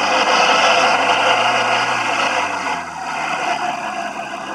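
Atomic 4 four-cylinder gasoline inboard engine speeded up, louder for the first two and a half seconds and easing back about three seconds in. The revs rise but the boat gains no speed: the transmission is slipping, which the owner puts down to a three-blade 12x12 propeller that is too aggressive.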